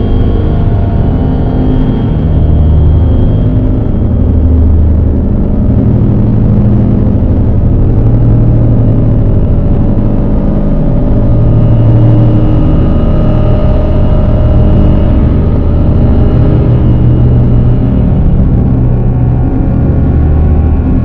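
Dark ambient drone music: a dense, loud low rumble with several held tones layered over it, swelling and easing slowly without a beat.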